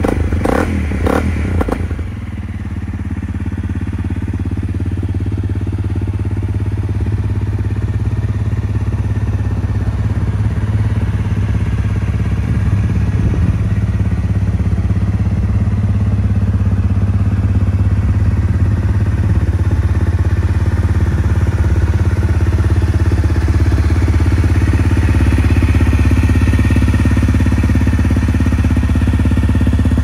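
Honda CRF250M's single-cylinder engine running through an aftermarket Moriwaki slip-on silencer. It revs briefly a few times in the first two seconds, then idles steadily.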